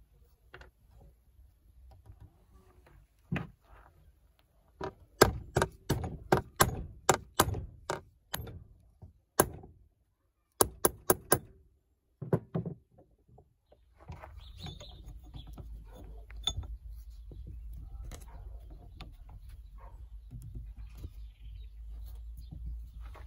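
A run of sharp, hard taps, about two a second, with a short break in the middle: a rusty saw bolt being knocked out of an antique hand saw's wooden handle. After that, small handling clicks over a steady low rumble.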